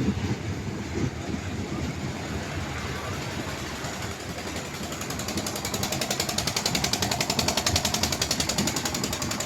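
Dragon train running with a mechanical rattle that turns into a fast, even clatter about halfway through.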